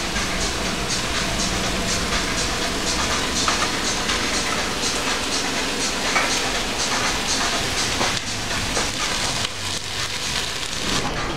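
Potato pancakes sizzling and crackling steadily in hot oil in a frying pan.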